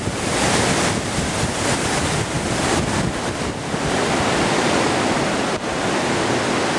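Steady rushing hiss of water running down the start chute of a water slide, mixed with wind noise on the microphone.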